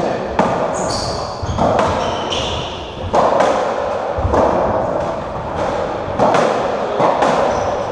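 A racketball rally in a squash court: the hollow rubber ball is struck by strung rackets and smacks off the walls and floor, about ten sharp hits that echo in the court. Short high squeaks from the players' shoes on the wooden floor come in between.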